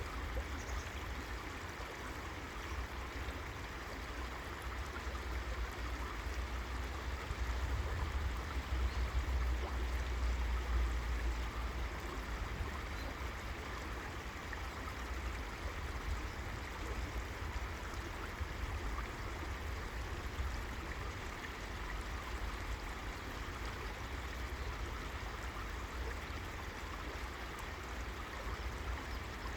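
River water flowing steadily, an even rushing sound, with a low rumble underneath that swells for a few seconds about a quarter of the way in.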